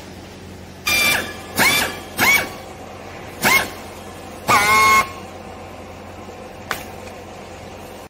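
Handheld powered strapping tool's motor whirring in five short bursts, each quickly rising in pitch and then holding, as it works the plastic strap around a baled load of used clothes.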